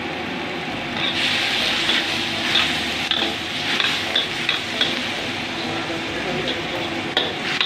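Broccoli sizzling in a hot wok, the sizzle swelling about a second in after oil is added, with a metal ladle clacking and scraping against the wok as it is stirred, several sharp knocks through the middle and a couple near the end.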